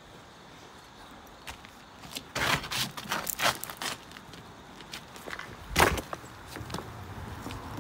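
Footsteps on loose rocks: stones crunching and knocking together underfoot in a quick run of steps about a third of the way in, then one loud clack of stone on stone shortly after halfway.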